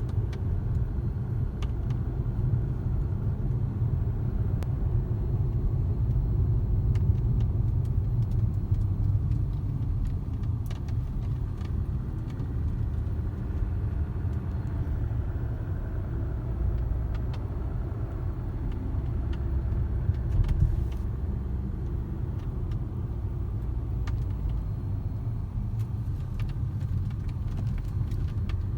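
Jaguar XJ X351 roof giving off irregular sharp pops and clicks over the steady low rumble of road noise in the car's cabin while it drives.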